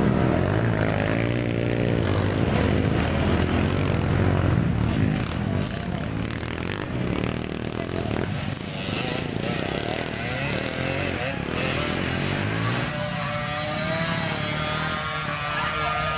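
Trail motorcycle engine running as the bike rides down a muddy slope, loudest in the first few seconds and then fading as it moves away.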